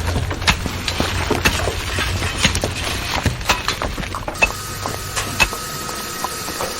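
Layered coal-mining sound effects: irregular sharp knocks and clatter over a low hum. About four seconds in, this changes suddenly to a steady high-pitched machine whine with a few scattered knocks.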